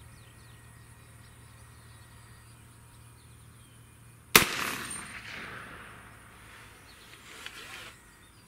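A single shot from a 300 Blackout rifle firing a subsonic 178-grain ELD-X handload, a sharp report about four seconds in whose echo dies away over a second or two.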